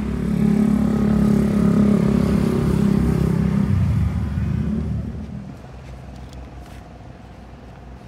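An engine running close by. It is loud for the first four seconds or so, then fades away steadily to the end.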